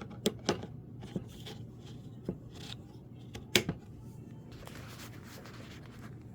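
Handling noise from a small cordless saw and its battery pack: a series of sharp plastic clicks and knocks, the loudest about three and a half seconds in, then a brief rustle, over a steady low hum.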